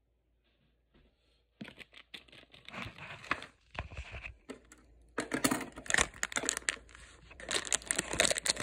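A toy box's packaging being torn open by hand: ripping and crinkling of the box and its plastic window film. It starts about one and a half seconds in and grows louder and busier about five seconds in.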